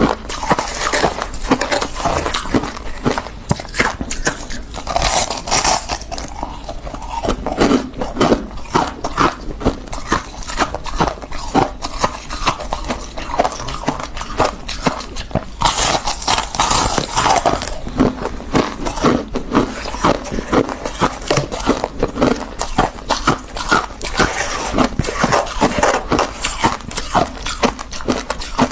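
Chewing and biting crunchy refrozen freezer frost: dense crackling crunches one after another, louder in spells.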